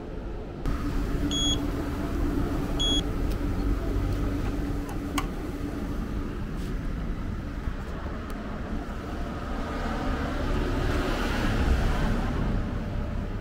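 A fresh-orange-juice vending machine beeps twice, briefly, and its machinery hums steadily for several seconds while a cup sits in the dispenser. A low rumble runs underneath throughout, and a rushing noise swells near the end.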